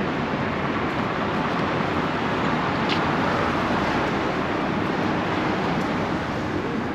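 Road traffic: cars driving past on a city street, a steady rush of tyre and engine noise that swells a little around the middle.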